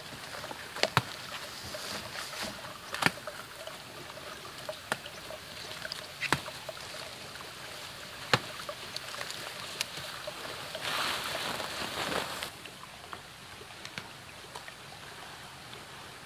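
Leaf stalks snapping one at a time and weeds rustling as wild daun bolang leaves are picked by hand in tall grass. There are a handful of sharp snaps spread through the first half, and a longer rustle of about a second and a half a little past the middle.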